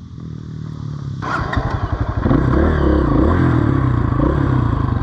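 Honda CRF230F dirt bike's single-cylinder four-stroke engine running, getting louder about a second in and again past two seconds.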